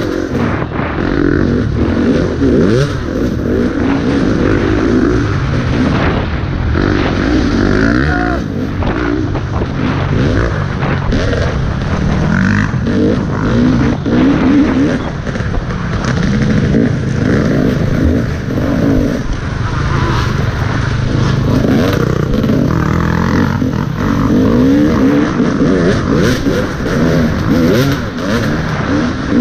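Motocross dirt bike engine revving up and down over and over as the rider works the throttle and gears, with occasional sharp knocks over rough ground.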